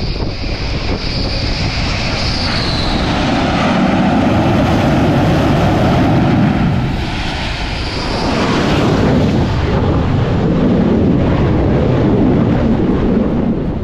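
MiG-29K's twin turbofan jet engines running loud as the fighter lands on an aircraft carrier deck. A high whine drops in pitch about two seconds in, and the engine noise swells again about eight seconds in.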